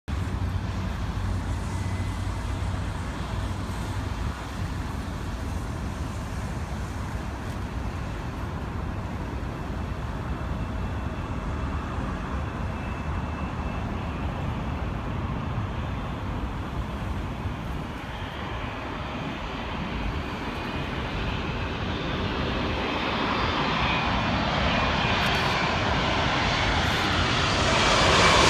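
Boeing 787-9 airliner on final approach, its jet engines growing steadily louder from about two-thirds of the way through and loudest near the end as it comes in low overhead, over a steady low rumble of road traffic.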